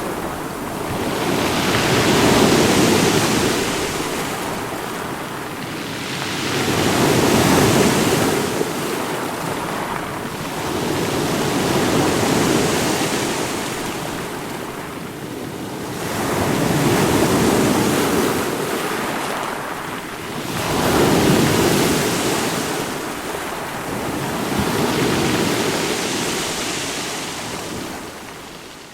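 Ocean surf: waves washing in, the rushing noise swelling and falling back about every five seconds, then fading down near the end.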